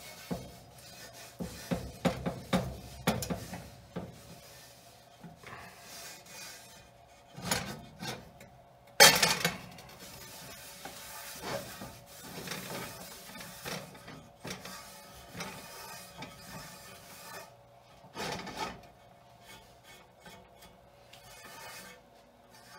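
A rag rubbing grease over a cast iron oval roaster on an electric coil burner, in irregular wiping strokes with scattered light knocks from the pan. There is one loud knock about nine seconds in.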